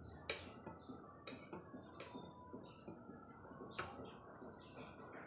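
Metal spoon clinking against a ceramic bowl while scooping rice porridge: four sharp clinks, the loudest about a third of a second in.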